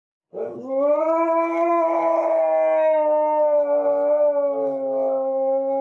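A dog howling: one long howl that glides up at the start and then holds a steady pitch.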